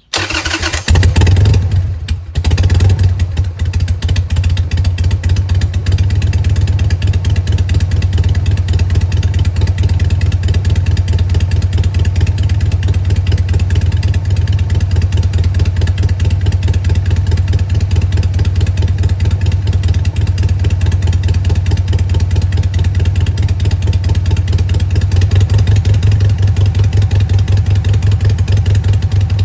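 Harley-Davidson Sportster 883 air-cooled V-twin starting cold on the choke, stumbling briefly about two seconds in, then settling into a steady, lumpy idle. It is run to circulate fresh oil and fill the new filter after an oil change.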